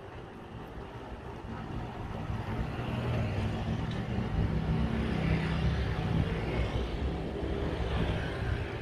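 A motor scooter's small engine approaching and passing close by, growing louder to a peak about halfway through and then fading away.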